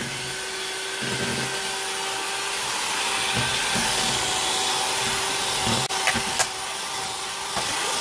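Electric hand mixer running steadily with a constant motor whine, its beaters churning thick chocolate dough in a plastic bowl. Two sharp clicks come about six seconds in.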